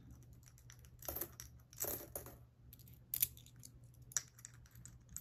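Dimes dropped one at a time into a nearly full piggy bank, a few short metallic clinks about a second apart.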